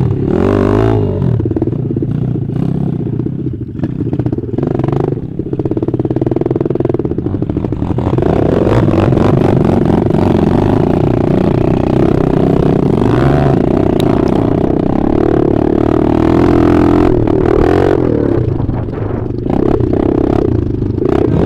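Small dirt bike engine revving up and down while riding a muddy dirt track, heard close from the rider's own bike. It holds a steadier, higher pitch from about eight seconds to about eighteen seconds in.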